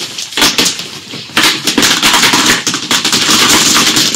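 Water-softener salt poured from a bucket into the softener's tank. A short rattle comes about half a second in, then from about a second and a half a steady, dense crackling of salt pouring in.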